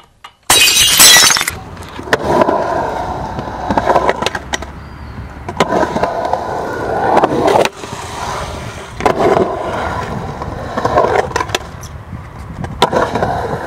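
A loud, short crash about half a second in. After it, skateboard wheels roll on concrete, the roll swelling and fading as the skater rides the bowl's transitions, with several sharp clacks of the board.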